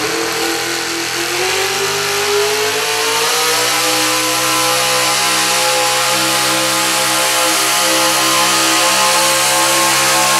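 Turbocharged engine of a 1960s Chevrolet pickup pulling truck under full load on the pulling track, its pitch climbing over the first few seconds and then holding high and steady.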